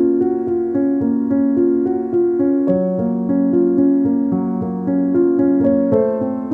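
Background music: a piano or keyboard piece playing a steady flow of notes, with the chords changing about every three seconds.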